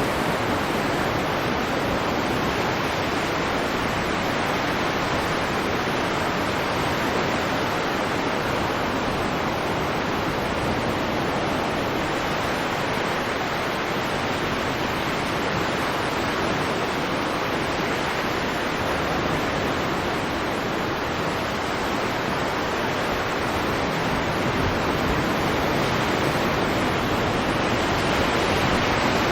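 Stormy sea ambience: a continuous, even rush of waves and surf, with no single breaking wave standing out, swelling slightly near the end.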